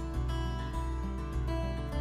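Background music: a plucked-string melody over low bass notes that change about every half second.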